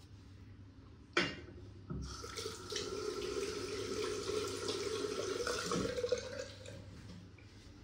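Water running from a tap into a bathroom sink for about four seconds, then fading out. It follows a single sharp knock about a second in.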